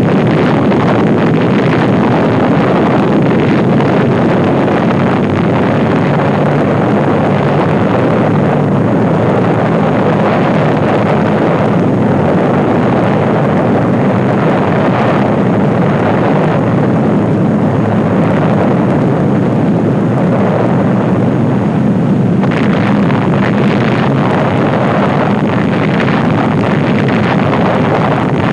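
Loud, continuous roar of the Trinity atomic bomb explosion, the sustained rumble that follows the detonation, going on steadily with no let-up and shifting a little in tone a few times.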